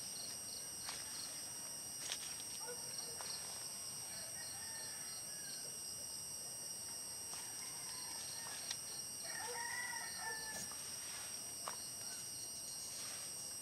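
A rooster crowing once, faintly, about ten seconds in, over steady high-pitched insect chirping that pulses quickly through the first half. A few light clicks, like footsteps, come and go.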